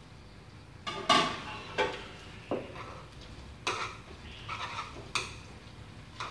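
Chopsticks knocking and clinking against a frying pan as pieces of chicken wing are turned. There are about seven irregular clinks, and the loudest comes about a second in.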